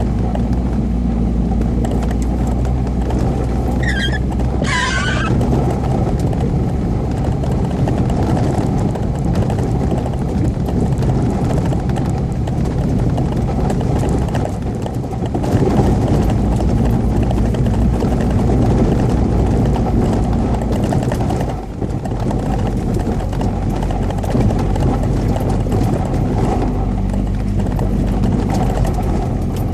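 UAZ Patriot SUV driving on a rally stage, engine running under load with steady rattling and knocking from the rough track. A brief falling squeal about four seconds in, and the engine note dips briefly twice.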